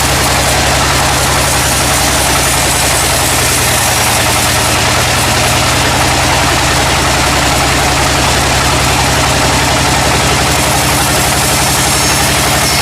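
A sawmill's engine running steadily at an even speed, with a dense, even hiss of machinery over it.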